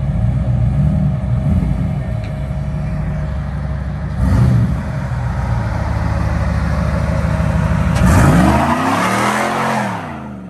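Car engine running steadily. About eight seconds in, a louder vehicle sound swells with a rushing noise and shifting pitch, then fades, like a vehicle passing close by.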